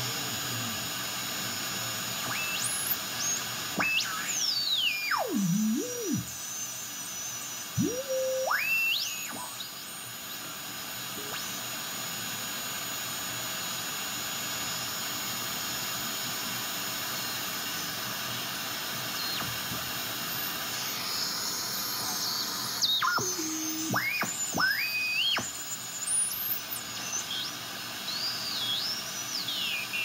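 Receiver hiss from an RTL-SDR demodulating a Drake TR4's 9 MHz IF, with heterodyne whistles that glide steeply down and back up in pitch as the tuning passes over signals, in two spells: early and again past the middle.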